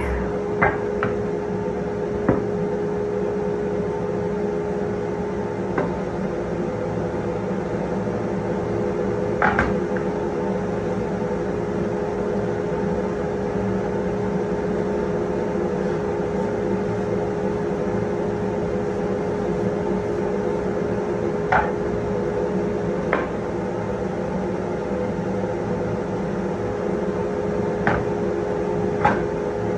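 Shop vacuum on the table saw's dust hose running with a steady hum. Scattered sharp knocks as wood strips and boards are set down on the saw table.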